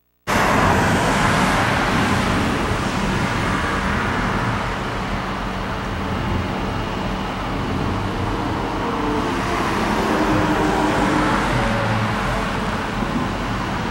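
Road traffic noise: a steady wash of tyre and engine noise, swelling as cars pass near the start and again about two-thirds of the way through.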